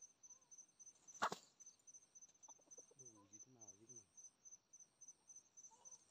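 Insects, likely crickets, chirping in a steady high pulse about two or three times a second. A sharp knock about a second in is the loudest sound, and a short low warbling sound follows around three seconds in.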